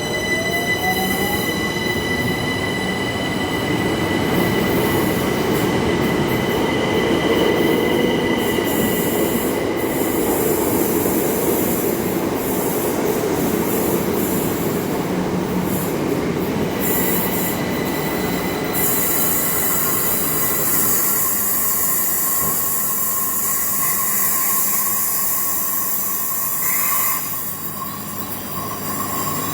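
Passenger train moving through the station: wheels rumbling on the rails with a steady high-pitched wheel squeal and a short rising whine at the start. A hiss joins in about two-thirds of the way through.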